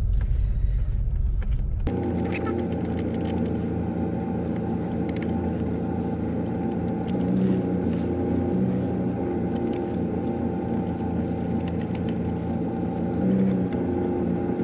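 A car running with a steady mechanical hum. The sound changes abruptly about two seconds in, from a low rumble to a steadier, higher hum.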